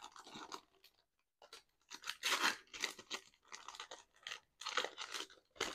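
Crinkling and tearing of plastic card packaging being opened by hand, in irregular short bursts with a brief pause about a second in.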